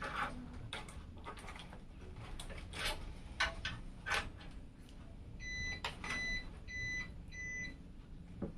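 A few sharp clicks and knocks of handling, then four short, evenly spaced electronic beeps in a row.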